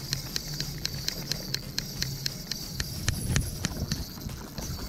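Spinning reel being cranked to retrieve line, giving a regular click about five or six times a second that fades out near the end, with wind rumbling on the microphone.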